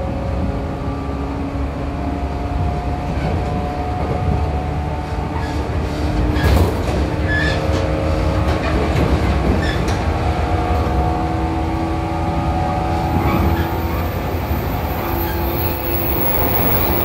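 Onboard running sound of a 415 series 100-subseries electric train's motor car (MoHa 415-123) at speed: a steady rumble of wheels on rail under a steady motor hum. A clatter of knocks about six and a half seconds in is the loudest moment.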